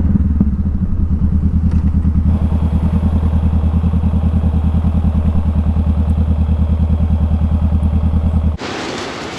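Honda CBR500R's parallel-twin engine running steadily at low revs with an even, fast pulse. It cuts off abruptly about 8.5 seconds in, giving way to wind and surf.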